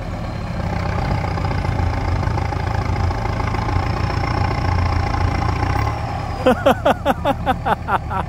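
Farm tractor's engine running steadily under load as it tows a truck off the rubble track, growing louder about a second in. Near the end, a quick run of about nine loud squeaky chirps, each falling in pitch, rises over the engine.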